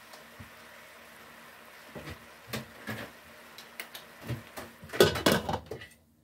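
Pork and vegetables sizzling faintly in a stainless steel pot, then a few separate knocks and clinks of kitchen utensils, and a loud clatter about five seconds in as a glass lid is set onto the pot.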